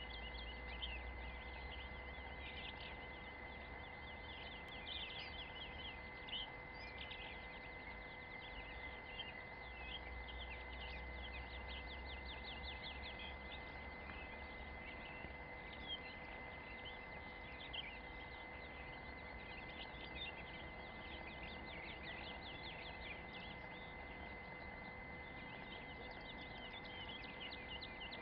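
Faint birdsong: small birds chirping and twittering over and over, with a steady thin high tone underneath.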